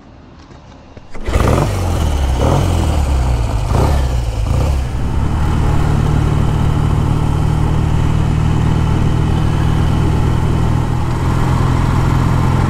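1956 Triumph T110's 650 cc parallel-twin engine comes in loud about a second in, revving up in several rising pulls over the next few seconds as the bike gets under way. It then settles into a steady run.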